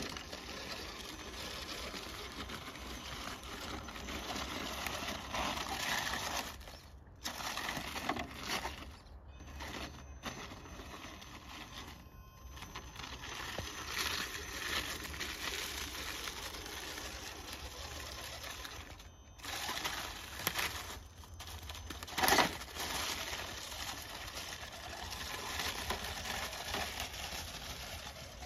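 Redcat electric RC rock crawler driving over snowy rocks and dry leaves: a faint steady motor whine under the crunching and scrabbling of its tyres, with a sharp knock about twenty-two seconds in.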